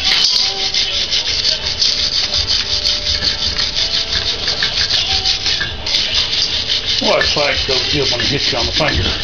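A steel wire brush is scrubbed fast back and forth over hot forged iron on the anvil, a rasping scrape that cleans scale off the forge-welded ring. There is a short pause about two-thirds of the way through.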